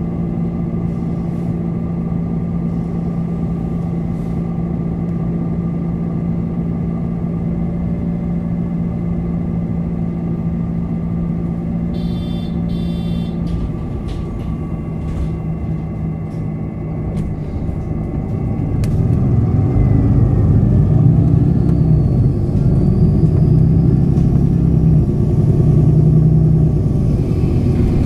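MAN Lion's City NL 323 Euro 6 bus with a ZF Ecolife automatic gearbox: the diesel engine idles steadily, with a brief high beeping about twelve seconds in. From about nineteen seconds the engine gets louder, its pitch rising and falling as the bus pulls away, with a faint rising whine.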